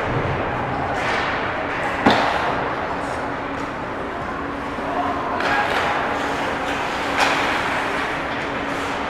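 Ice hockey play in a large indoor rink: skates scraping across the ice, with two sharp knocks, one about two seconds in and a second about seven seconds in.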